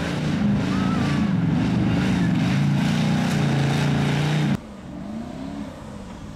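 Off-road racing buggy's engine revving up and down repeatedly as the buggy climbs out of a deep mud hole. About four and a half seconds in, the sound cuts off abruptly to a quieter engine revving.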